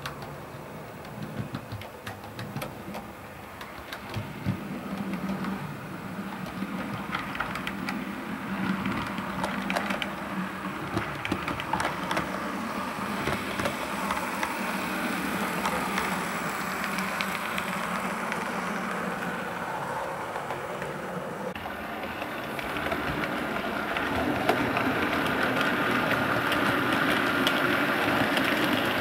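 00 gauge model trains running on the layout's track: many fine clicks of wheels over rail joints over a steady motor hum. The sound grows louder as a green model diesel multiple unit approaches and passes about halfway through. It changes character and gets louder again near the end.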